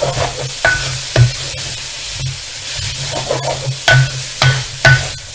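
Mee goreng noodles and vegetables sizzling in a wok over high heat as they are stirred and tossed with a spatula. The spatula knocks and scrapes against the wok several times, mostly near the start and again about four seconds in.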